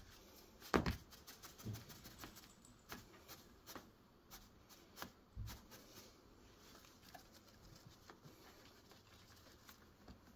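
A cat batting and clawing at the string of a wand toy on the fabric arm of an armchair: scattered light taps, scratches and rustles, with a soft thump about a second in.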